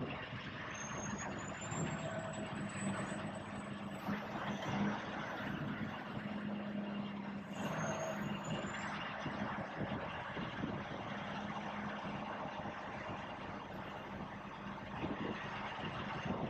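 Semi-truck tractor's diesel engine running at low speed while it maneuvers a trailer, with a faint high whistle rising near the start and again about halfway.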